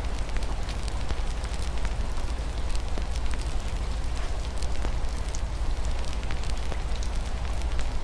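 Wood fire crackling with scattered sharp pops over a steady hiss of rain falling on a window, with a constant low rumble underneath.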